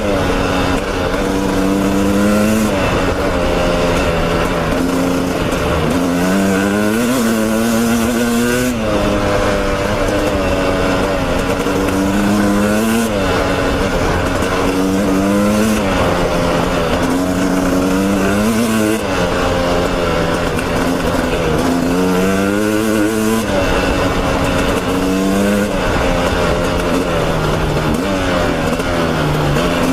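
Dirt bike engine being ridden hard, its pitch climbing under throttle and dropping back again and again as the rider works the throttle and shifts.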